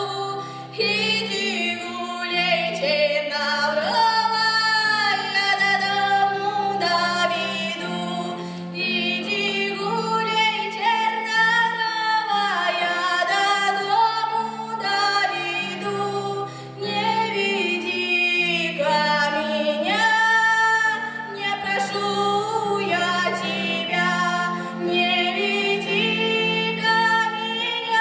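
A female voice singing a song solo, with vibrato on held notes, over an instrumental backing track with sustained low accompaniment.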